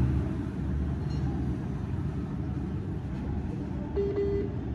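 Steady low rumbling background noise, with a brief steady tone about four seconds in.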